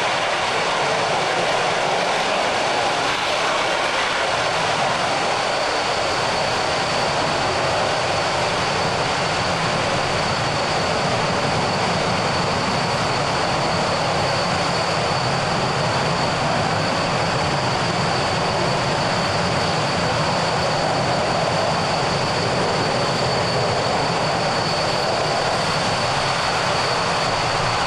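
Panavia Tornado jets' Turbo-Union RB199 engines running in afterburner: a steady, unbroken jet roar with a thin high whine that becomes stronger about halfway through.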